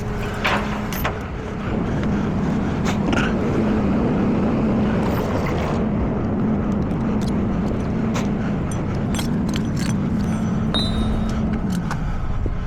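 A vehicle engine runs steadily at an even speed, with scattered clicks and rattles. The engine note drops away near the end.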